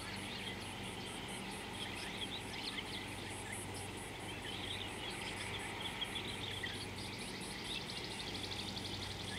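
Natural bush ambience: an insect's high pulsing call repeating about four to five times a second, with many short bird chirps scattered over it and a quick trill near the end, above a faint low hum.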